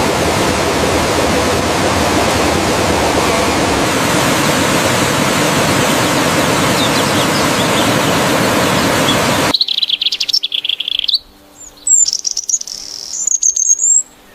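A loud, steady, even noise cuts off suddenly about nine and a half seconds in. It gives way to high bird chirps that come in short runs, rising and falling in pitch.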